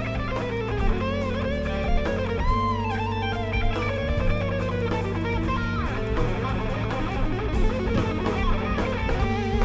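Instrumental gypsy-jazz music led by plucked guitar over sustained bass notes.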